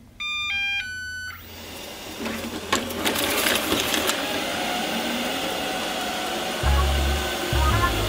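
Ecovacs Deebot N79S robot vacuum starting up: a short electronic jingle of stepped beeps, then its suction motor and brushes spin up into a steady whirring hiss as it runs. Music with a deep bass comes in near the end.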